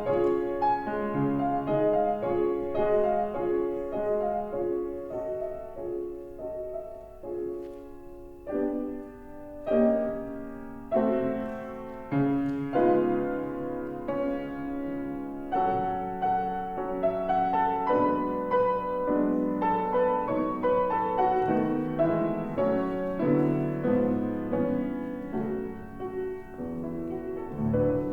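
Solo piano playing a slow, gentle piece, with sustained chords and a melody that changes note every second or so.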